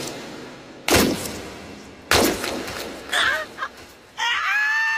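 Cartoon sound effects: sudden loud booms about a second apart, each fading out. Near the end comes a high, held cry.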